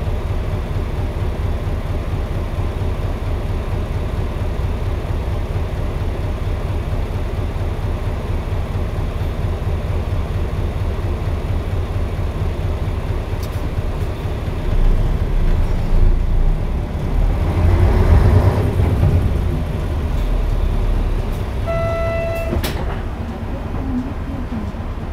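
Running sound of an Isuzu Cubic KC-LV280N city bus with its V8 diesel engine: a steady low drone that swells louder for a few seconds a little past the middle. A short electronic beep sounds near the end.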